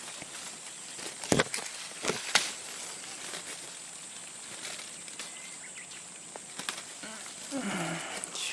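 Silver vine leaves and twigs rustling as fruits are picked off the vine by hand, with a few sharp snapping clicks about a second and a half and two seconds in.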